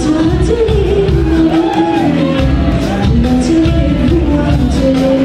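Live band music with singing: a sung melody over drums, bass, electric guitar and synth, with a steady cymbal beat.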